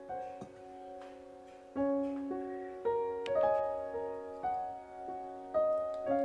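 Gentle solo piano background music, notes and chords struck about once a second and left to ring and fade.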